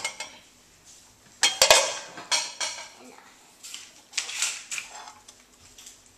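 Cutlery and a ceramic plate clinking and clattering as they are carried and set down with a glass on a counter: a sharp cluster of knocks about one and a half seconds in, then lighter clinks every half second or so.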